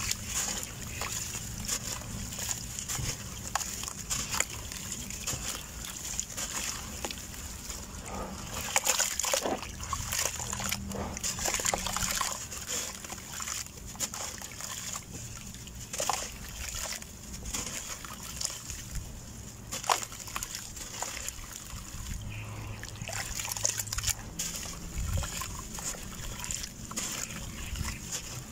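Soft red dirt crumbled by hand into a bowl of water: gritty crumbling with irregular small splashes and wet sloshing as the dirt falls in.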